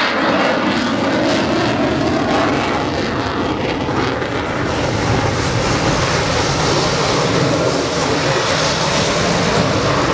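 Aircraft engine noise from a display flight, a loud steady rush.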